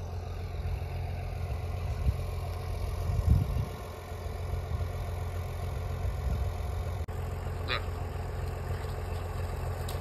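An engine running steadily, a low even hum, with a brief bump about three seconds in.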